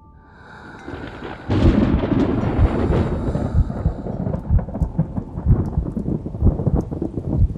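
Thunder with rain: a rumble builds, breaks loudly about a second and a half in, then goes on rumbling with crackles and low thuds.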